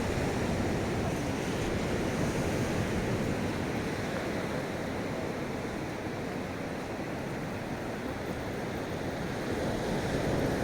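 Ocean surf breaking on a beach: a steady, rushing wash of waves.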